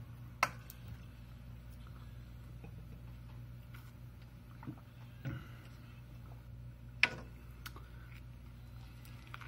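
Quiet eating sounds of a person chewing a veggie burger over a steady low room hum, with a few sharp handling clicks: a small one about half a second in and a louder one about seven seconds in, just before a fresh bite.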